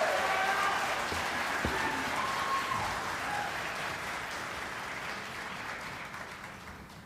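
Audience applauding after a barbershop chorus's final chord, the clapping dying away steadily.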